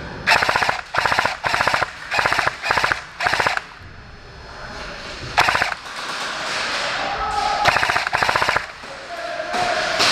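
Airsoft M249 Mk46 light machine gun replica firing rapid full-auto bursts. There are about six short bursts in the first three and a half seconds, a single burst midway, and another run of bursts near the end.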